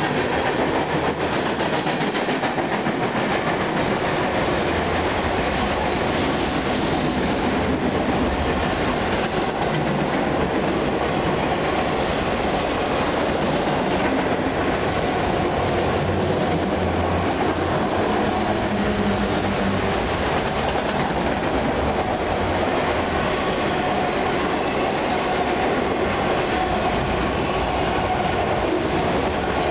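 Freight cars of a fast train rolling past close by, a steady rush and rattle of steel wheels on the rails, covered hoppers and then autoracks going by.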